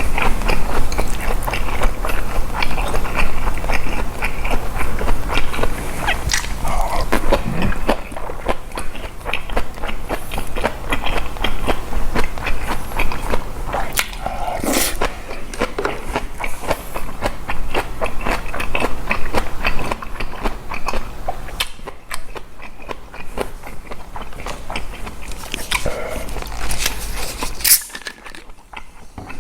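Close-miked eating sounds of boiled pork bossam and fresh napa cabbage kimchi: continuous biting and chewing, with many quick crunchy clicks.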